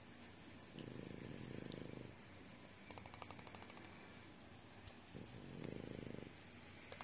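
A bulldog snoring in slow breaths, about two cycles. Each cycle is a faint rapid rattling flutter, then a louder, lower buzzing snore lasting about a second.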